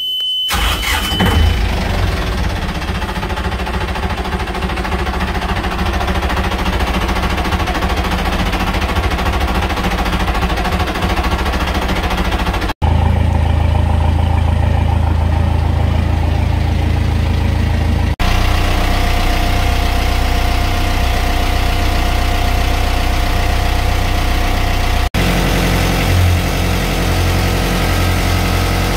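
Yanmar 4JH3 turbocharged four-cylinder marine diesel being key-started and catching within about a second, then idling steadily. A high panel warning buzzer cuts off once it is running. Later it is heard close up in the engine compartment, heavier and deeper.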